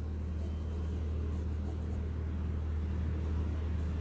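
A steady low hum under a faint even hiss.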